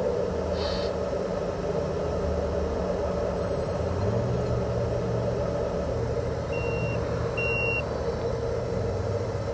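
Simulated diesel engine sound from the RC construction models' electronic sound kits, running steadily at idle; the engine note steps up slightly about four seconds in. Two short electronic beeps sound near the end.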